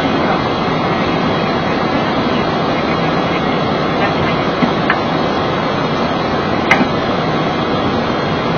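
Steady rushing noise on a Boeing 737 flight deck in flight, with a couple of short clicks about five and seven seconds in.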